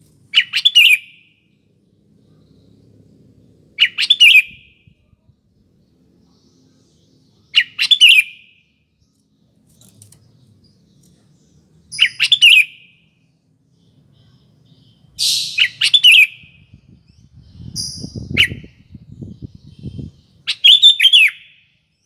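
Sooty-headed bulbul (kutilang) singing short, bubbling whistled phrases, each under a second, repeated about every four seconds, six times. A low rumble with a few thuds comes in near the end, between the last two phrases.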